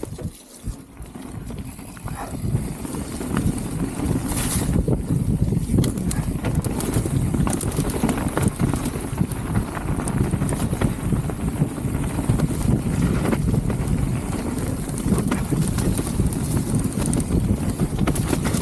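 Mountain bike rolling down a muddy dirt trail: a steady rumble of tyres on the ground with frequent knocks and rattles from the bike, and wind on the microphone. It builds over the first couple of seconds as the bike gets up to speed.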